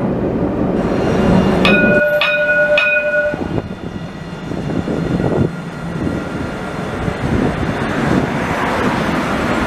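Dubai Tram (Alstom Citadis) running: a low rumble from inside the tram, then three quick ringing strikes of the tram's chime about two seconds in, followed by the tram rolling past close by, a steady rush that grows louder toward the end.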